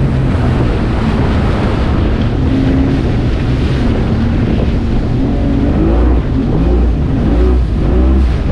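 Outboard motor of a small fibreglass fishing boat running while the boat crosses foaming surf, with waves washing and wind buffeting the microphone.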